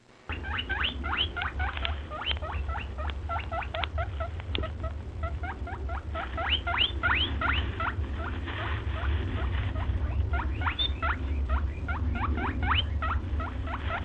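Many small animals giving rapid, overlapping squeaky chirps, each rising sharply in pitch, several a second throughout, over a steady low rumble.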